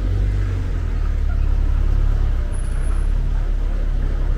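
City street traffic: cars and buses running past with a steady low rumble.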